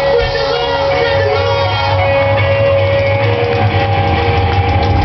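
Live rock band playing, electric guitar holding long notes over a steady bass line.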